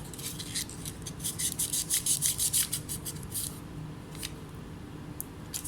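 Quick scrubbing strokes, roughly seven a second for about three seconds, then a few single ticks, as from small hand work on a laptop circuit board. A faint steady hum sits underneath.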